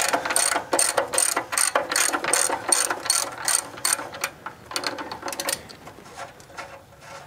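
Hand socket ratchet clicking in quick back-strokes, about three a second, as it backs out an oil drain plug; the clicking thins out about four seconds in as the plug frees up.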